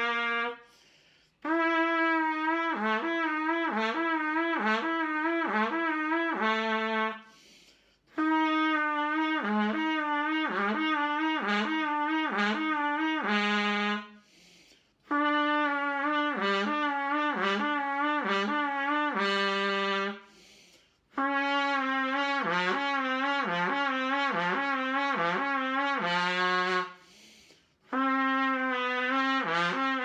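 Trumpet playing a lip-legato slur exercise: held notes are slid down and back up by jaw movement again and again, and each phrase drops to a lower held note a fifth below. There are four phrases of about six seconds, with short breaths between them.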